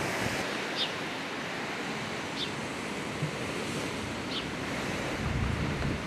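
Steady rushing of sea surf and wind on the microphone, with a few faint, brief high chirps.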